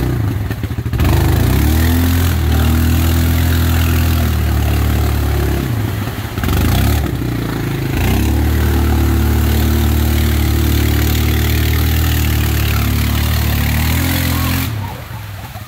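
Yamaha Kodiak 700 ATV's single-cylinder engine revving hard under load as its wheels spin, stuck in deep mud, with mud and water churning. Two long spells of high revs with a brief drop about six seconds in; the revs fall away near the end as it pulls free.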